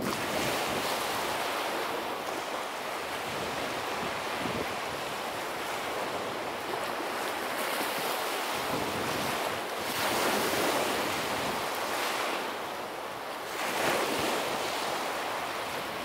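Small lake waves breaking and washing up a sandy beach in a continuous wash, swelling louder as each wave comes in, most plainly about ten and fourteen seconds in.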